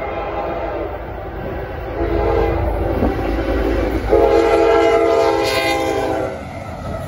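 CSX freight locomotive's horn blowing the end of a grade-crossing signal: a long blast that ends about a second and a half in, a short blast about two seconds in, then a final louder long blast from about four seconds in until just past six, over the low rumble of the approaching train.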